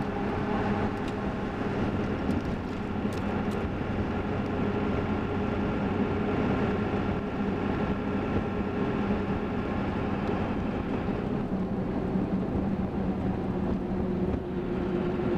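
Steady road noise heard from inside the cab of a Ford F350 with a 7.3 Powerstroke diesel, cruising at just under 60 mph on Mickey Thompson Deegan 38 mud tires. It is an even hum from the aggressive tread, with the diesel running underneath and wind coming in through the half-open side window.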